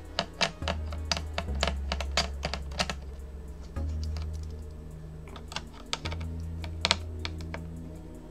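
Small sharp clicks and taps of a screwdriver working the screws of a laptop's CPU heatsink, quick and dense in the first three seconds, then a few more later. Background music with low held notes underneath.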